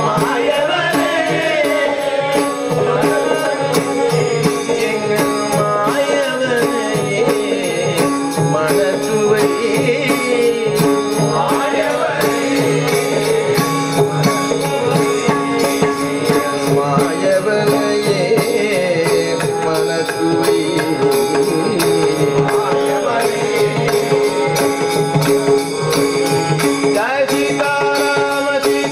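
South Indian devotional bhajan music: a mridangam drum played in a steady rhythm, with a harmonium's held tones, jingling hand cymbals and a man singing.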